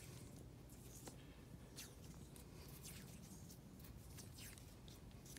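Faint crackling of vinyl electrical tape being pulled off the roll and wound around a spliced wire, a scatter of short, sharp rasps.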